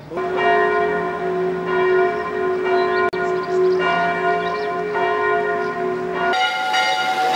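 Church bells ringing, with several bells struck in turn and each strike leaving a long ringing tone. A little past six seconds it switches abruptly to a different, higher-pitched set of bells.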